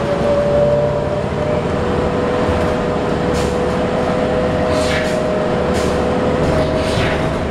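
Cabin noise of a 2008 New Flyer D40LF diesel transit bus on the move: steady engine and road noise with a constant mid-pitched drivetrain whine. Several short hisses come in the second half.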